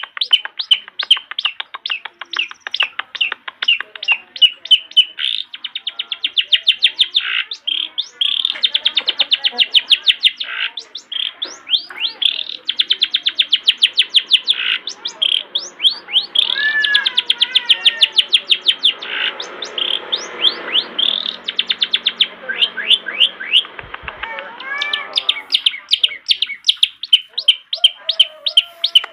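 Long-tailed shrike (cendet) singing without pause: rapid strings of sharp, repeated high chirps, several a second. In the middle the song turns to a more varied run of lower, gliding warbled phrases before the fast chirping comes back.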